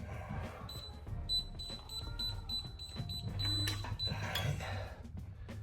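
Background music playing, with a few faint clicks and knocks.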